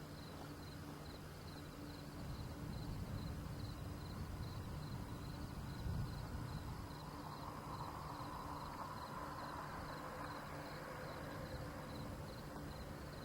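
Insects chirping in an even, repeating pulse over a low, steady rumble.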